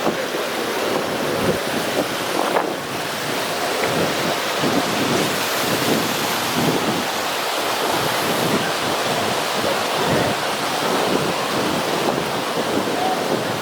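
Steady rushing of a mountain river or stream, with wind buffeting the microphone.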